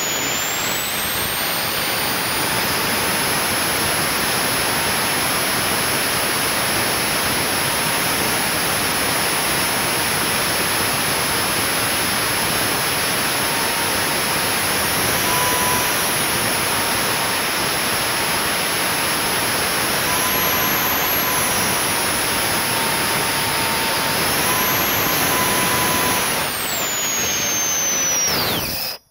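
Home-built kerosene turbojet engine running hard on a test stand: a loud jet roar with a high turbine whine that steps up in pitch a few times. Near the end the whine falls steeply as the engine runs down, in a run that ended with a bearing failure.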